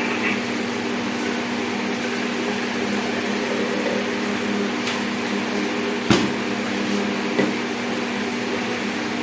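A steady machine hum from a running appliance, with a sharp click about six seconds in and a lighter knock a little after seven seconds.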